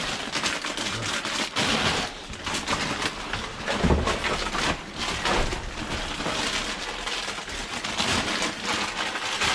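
Plastic-foil bags of potato chips crinkling and crackling as they are handled and rummaged through, a dense run of sharp crackles.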